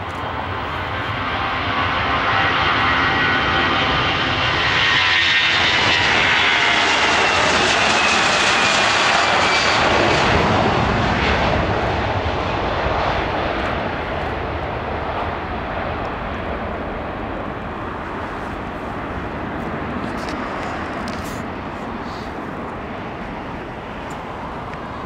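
Airbus A340-300's four CFM56 turbofans at takeoff thrust: a loud jet roar that builds as the airliner rolls past, with a high fan whine falling in pitch, then slowly fades as it climbs away.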